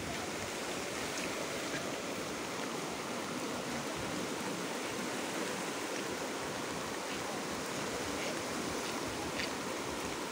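Swollen river in flood, its muddy torrent rushing past in a steady, even noise of fast water.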